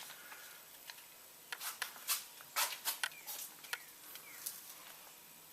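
Faint, scattered light clicks and ticks, about a dozen spread irregularly over a few seconds, with one or two short squeaks among them.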